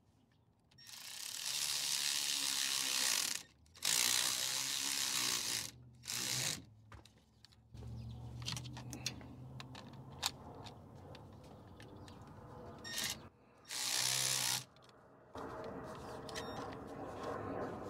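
Hand-held power tool running in short bursts, driving in actuator mounting bolts: four runs of one to two and a half seconds with a steady low hum, and scattered clicks between them.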